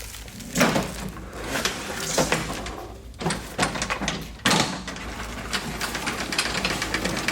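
A few separate knocks and clunks, then from about five seconds in a rapid, even clicking as the Toro TimeMaster mower is rolled: gears against gears in the rear drive, with no popping from the rear wheel shield now that the out-of-round wheel has been replaced.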